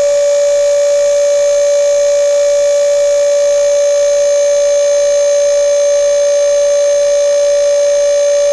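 Loud, steady electrical whine from a battery-fed inverter power setup as it runs: one held tone with overtones that does not change in pitch or level.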